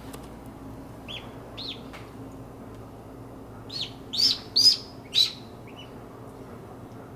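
Newly hatched duckling peeping: two faint peeps about a second in, then four loud, high peeps in quick succession in the middle.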